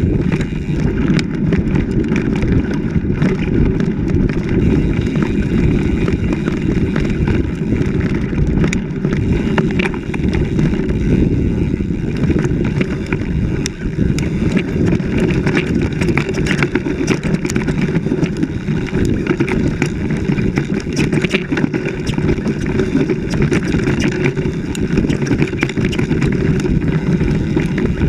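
Wind buffeting an action camera mounted on a mountain bike's handlebars during a fast descent on a rough dirt trail. Steady rumbling noise, with many quick rattles and knocks from the bike over bumps.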